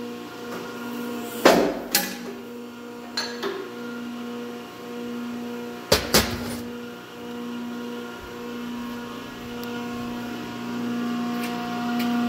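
Piranha 35-ton punch press running with a steady electric hum, with sharp metal clunks: two about a second and a half in, two more around three seconds, and a loud double clunk about six seconds in.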